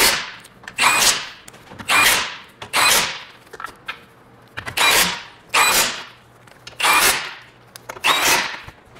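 A power tool run in about nine short spurts, each dying away quickly, spinning the engine mount nuts back on.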